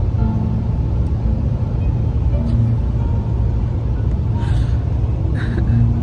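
Steady low rumble of road noise inside a moving car's cabin, with a few brief bits of voice about two-thirds of the way in.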